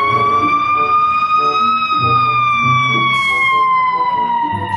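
Fire engine siren wailing: a single slow tone that rises a little over the first two seconds and then falls away steadily.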